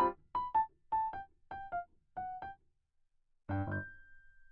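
Cute background music: short pitched notes in quick pairs, a pause, then a chord about three and a half seconds in with one high note held after it.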